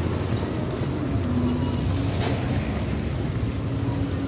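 Street background: a steady low hum like a motor vehicle engine running nearby, with faint voices.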